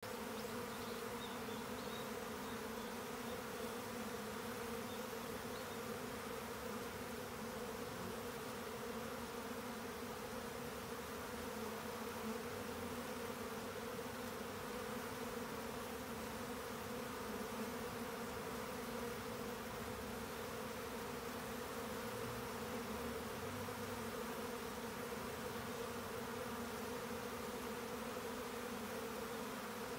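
Steady, unbroken hum of many Japanese honeybees flying around their hive: a colony at swarming time.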